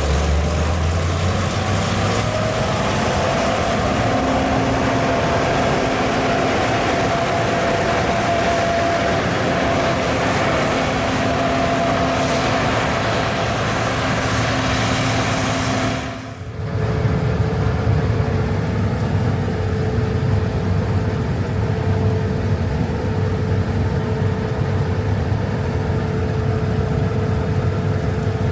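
Gleaner R65 combine harvester running steadily while harvesting wheat: a constant machinery drone with a held tone. About sixteen seconds in the sound drops out briefly and comes back with a differently pitched tone.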